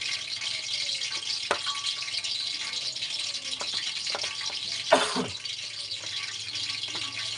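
Light handling noises as food pieces are tossed and pressed in flour in a stainless steel tray: soft rustling with a few light knocks, and one louder brief clatter about five seconds in, over a steady hiss and low hum.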